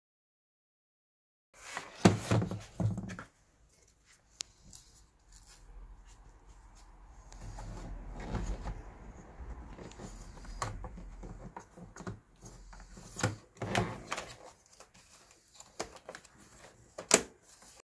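Plastic knocks, rattles and clicks as a Toyota Prius Gen 2 instrument cluster's plastic housing and circuit board are handled and fitted together, with a sharp click near the end.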